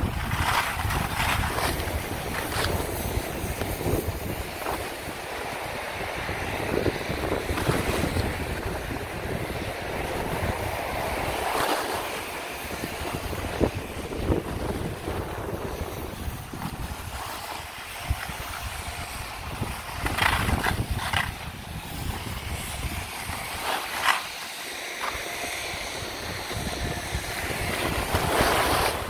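Wind rushing over the microphone during a fast downhill run on a groomed ski slope, with the hiss and scrape of edges carving packed snow. Louder scraping swells come a few times, around the middle and near the end.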